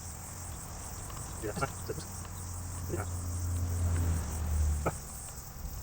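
Insects chirring steadily and high-pitched outdoors, with a low hum underneath that drops away near the end and a few faint handling clicks.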